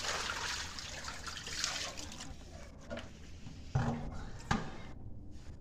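Water poured out of a plastic bucket splashing onto a tiled floor, strongest over the first two seconds and then fading, with a couple of short knocks near the middle.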